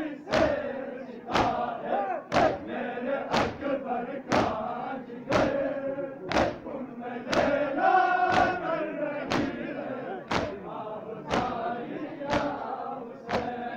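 A large crowd of men chanting in unison. Sharp beats land together about once a second, steady throughout: the palm slaps of chest-beating in time with the chant.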